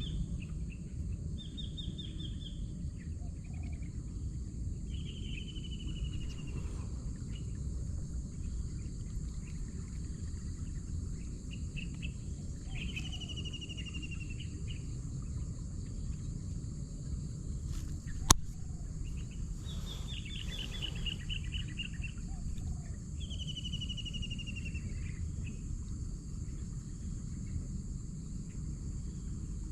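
Outdoor ambience: a bird repeatedly sings a short descending trill every few seconds over a steady high insect drone and a low steady rumble. A single sharp click about eighteen seconds in.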